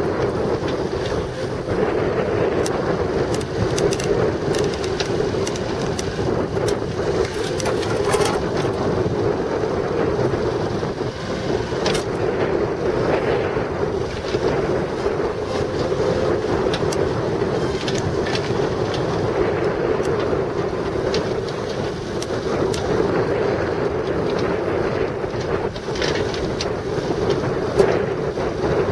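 Kubota KX61-2 mini excavator's diesel engine running steadily while the machine is operated, with scattered clicks and knocks over the engine's drone.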